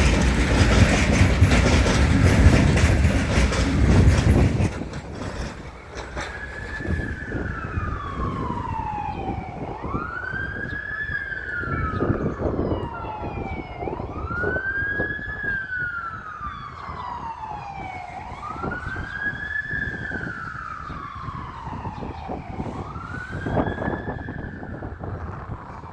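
The last freight wagons of a train rumble past loudly for the first four seconds or so, then cut off. An emergency-vehicle siren follows, wailing in repeated cycles that rise quickly and fall slowly, about one every four seconds.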